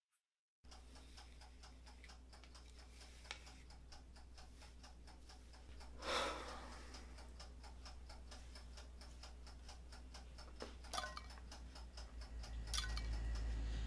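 A clock ticking steadily over a low hum. A short rush of noise comes about six seconds in, and a deep rumble swells near the end.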